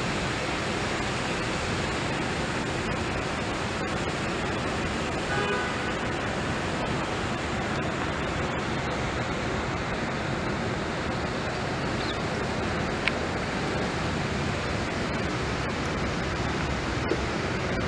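Steady, even rushing noise that holds the same level throughout.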